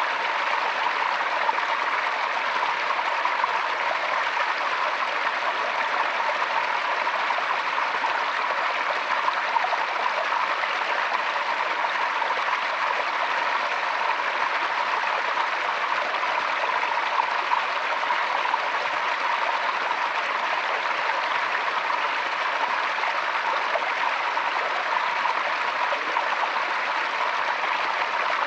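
Forest stream flowing steadily over rocks, a continuous even rush of running water.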